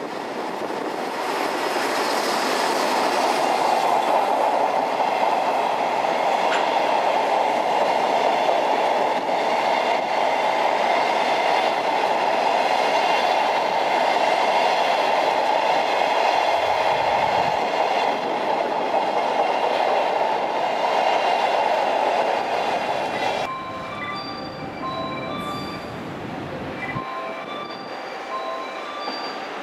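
Freight train of empty flatcar wagons, hauled by an EF65 electric locomotive, rolling past at speed: a loud, steady rush of wheels on rail with clickety-clack over the rail joints. About 23 seconds in, it cuts off suddenly to a quieter scene. There an electronic alarm rings in short repeating beeps at two alternating pitches over a low rumble.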